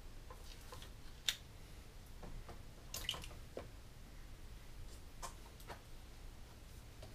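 Faint clicks and scrapes of a metal ice-cream scoop working a scoop of ice cream into a glass dish and digging into a plastic tub. There is a sharp click about a second in, then softer clicks and scrapes around three and five seconds in.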